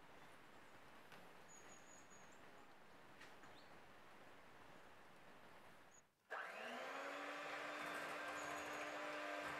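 An electric hand mixer starts about six seconds in: its motor spins up and then runs at a steady whir as the beaters whisk eggs, sugar and oil in a glass bowl. Before it there is only a soft steady hiss.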